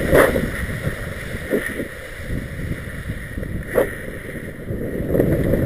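Wind buffeting the microphone and skis hissing and scraping over snow as the skier carrying the camera moves downhill. The rumble eases in the middle and builds again near the end, with two short sharp clicks.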